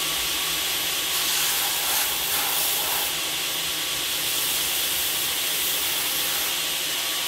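Electric sander running with a steady hiss while it trues the freshly cut edge of a piece of leather for a knife sheath. The sound grows a little louder between about one and three seconds in.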